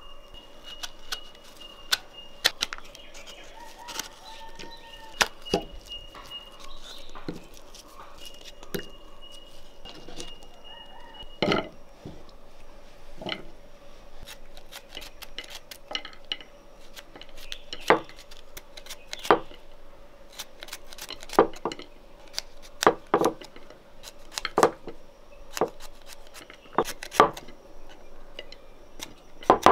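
Knife cutting fresh coconut flesh into small pieces: sharp, irregular clicks and knocks, thickest in the second half, with some clinks of dishes. Chickens call in the background during the first ten seconds or so.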